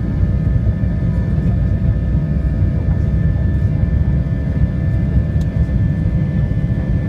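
Inside the cabin of a Boeing 737-800 on its takeoff roll: its CFM56-7B turbofans running at high thrust, a steady heavy rumble with steady engine tones above it.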